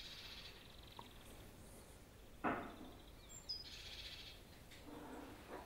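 Faint outdoor ambience with small birds chirping: a fine high trill near the start and more high chirps a little past the middle. A short, louder noise breaks in about two and a half seconds in.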